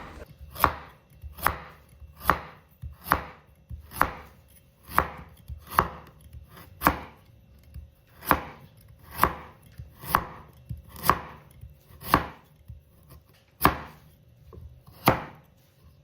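Kitchen knife slicing a carrot into rounds on a cutting board: sharp chops about one a second, each blade strike knocking through to the board.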